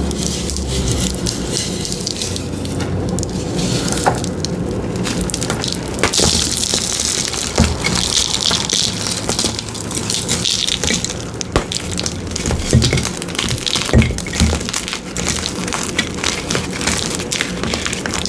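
Hands crushing blocks of glittery reformed gym chalk: a dense run of crisp crunches and cracks, with a powdery crumbling hiss through the middle.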